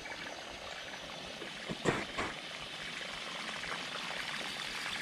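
Steady rush of river water, with two sharp knocks about two seconds in, the first louder.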